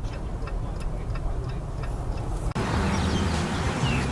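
A car's turn-signal indicator clicking steadily, a few ticks a second, over the low rumble of the car driving. It cuts off abruptly about two and a half seconds in, giving way to a louder rumble of road and wind noise.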